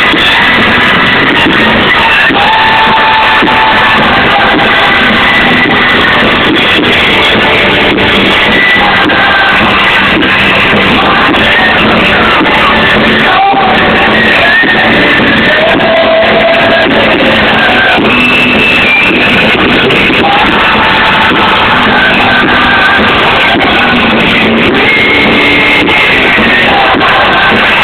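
Loud music with singing, recorded very hot so that it sounds harsh and muffled, with no highs.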